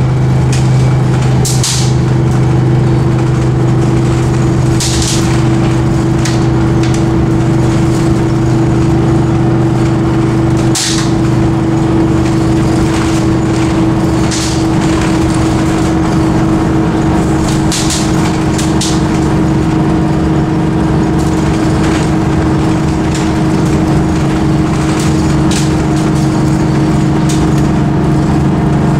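Detroit Diesel 6V92TA two-stroke V6 diesel of an MCI Classic coach, droning at a steady cruise with road noise, heard from inside the passenger cabin. Short hisses come every few seconds.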